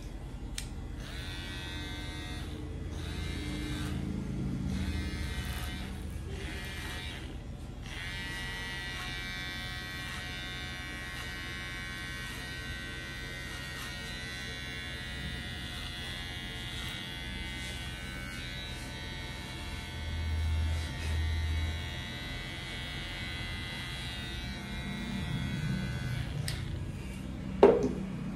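Electric hair clipper buzzing as it cuts hair at the back of the head. It comes and goes in short stretches at first, then runs steadily. Near the end there is one sharp knock.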